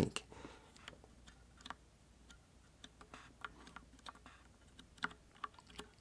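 Barely audible keystrokes on a Filco Majestouch-2 mechanical keyboard with Cherry MX Brown switches: soft, irregular taps with no real clicking sound.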